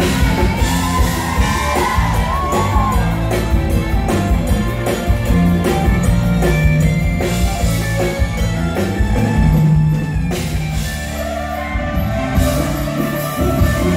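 Live band playing a Thai luk thung song through the PA, drums keeping a steady beat, with a woman singing into a microphone during the first few seconds and again near the end.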